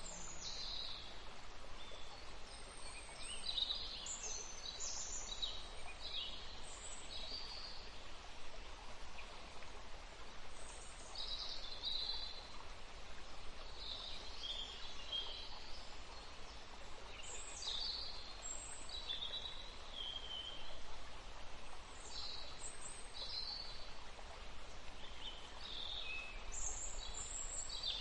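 Birds chirping in short, high, irregular calls over a steady background hiss.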